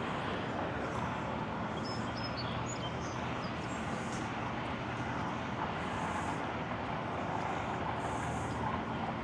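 Steady hum of road traffic passing nearby, with a few faint high chirps about two seconds in.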